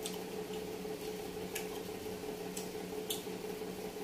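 Eating sounds: four short, wet clicks from chewing and handling food, spaced irregularly, over a steady electrical hum.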